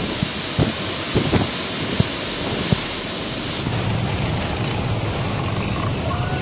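Typhoon wind and heavy rain lashing trees, with several sharp knocks in the first half. A little over halfway through it changes to a duller wind with a low rumble on the microphone, as heard from inside a tent.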